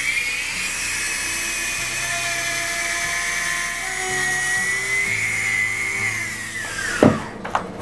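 Small handheld rotary grinding tool with a stone bit running at a steady high whine as it grinds out the mold seam at the vent of a cast reproduction bass. The whine dips slightly about four seconds in, then winds down with falling pitch near the end as the tool is switched off.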